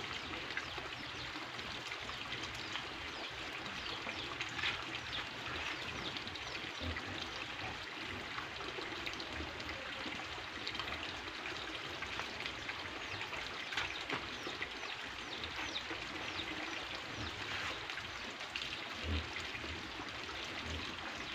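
Steady trickle of running water, with faint scattered ticks.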